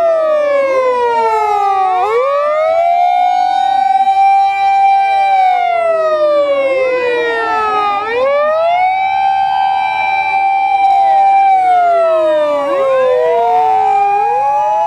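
Several Japanese fire engine sirens wailing together. Each rises quickly, holds a high tone for a few seconds, then slides slowly down, in cycles of about six seconds, with the sirens overlapping out of step.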